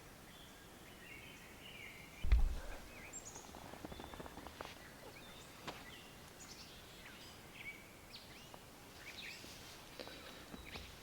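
Songbirds chirping and calling in the background, with a single loud low thump a little over two seconds in, followed by some faint crackling rustles.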